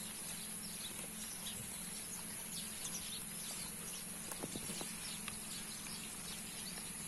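Quiet outdoor background with a steady hiss and low hum, faint high chirps, and a few soft knocks and rustles about halfway through as the woven bamboo eel trap is handled and tipped over a sack.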